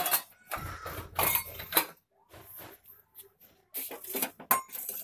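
Metal kitchenware being handled: sharp clinks and knocks of a pot, lid and metal spoon at the stove, with a brief rush of noise about half a second in and a cluster of knocks near the end.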